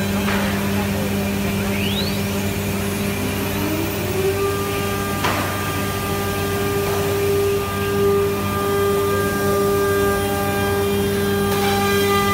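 Holztek CNC door lock-and-hinge boring machine running: a steady hum and whine of its router spindle motors and dust extraction, with a rising whine about two to four seconds in and a short sharp sound about five seconds in.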